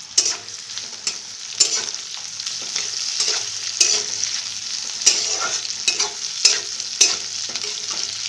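Sliced onion and capsicum sizzling in hot oil in a kadai, with a utensil knocking and scraping against the pan about ten times as they are stirred.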